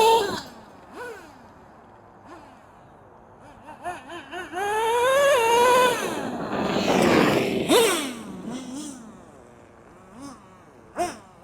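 Small nitro engine of a Traxxas T-Maxx RC monster truck revving in bursts, its high whine rising and falling as the throttle is opened and closed, with quieter idle-like stretches between.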